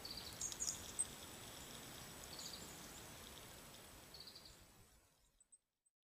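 Water trickling steadily from a pipe into a bird bath, with short, high, thin calls of small birds a few times. The sound fades out near the end.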